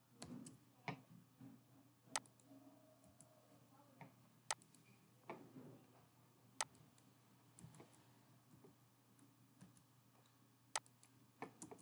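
Scattered single clicks of a computer keyboard and mouse, a dozen or so at irregular intervals of about a second or two, as a line of code is edited, over a faint steady hum.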